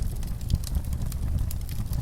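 Wood fire in a fireplace crackling: frequent sharp pops and snaps over a low steady rumble of the flames, one pop a little louder about half a second in.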